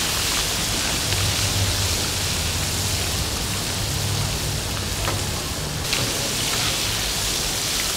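Battered mantis shrimp deep-frying in a wok of hot oil: a steady, loud sizzle.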